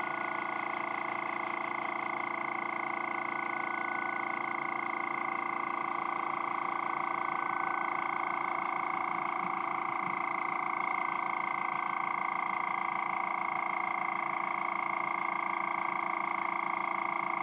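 Small hobby air compressor running steadily with a constant hum and a fast, even pulse as it refills its drained holding tank, testing whether the resealed drain plug holds.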